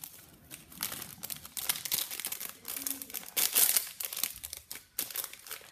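Packaging crinkling and tearing as a small collectible pack is handled and opened, in irregular rustling bursts.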